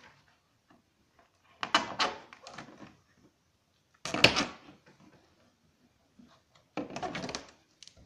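A sheet of clear thermoplastic (Worbla's TranspaArt) being flexed and pressed down onto the screws of a wooden frame, crackling and scraping in three short bursts, the loudest about four seconds in.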